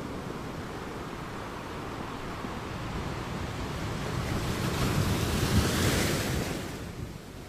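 Sea water washing and splashing against a small boat, with wind buffeting the microphone. A louder rush of water swells up over a few seconds, peaks about five to six seconds in, and falls away near the end.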